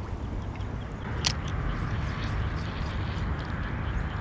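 Pond-side outdoor ambience: a steady low rumble with a single sharp click about a second in, and a bird chirping in quick repeated notes near the end.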